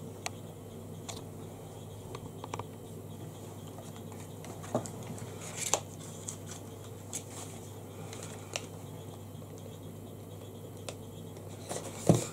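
Sparse small clicks and taps of handling, with a louder knock near the end, over a steady low hum.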